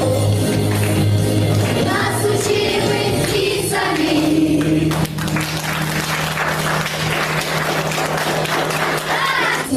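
A group singing together over a backing track. About halfway through the singing stops and audience applause follows over a held music note.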